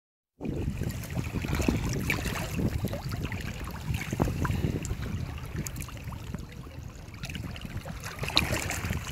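Wind rumbling on the microphone over water lapping and splashing in the shallows, with scattered small splashes.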